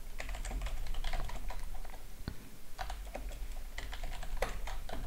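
Typing on a computer keyboard: quick, irregular key clicks.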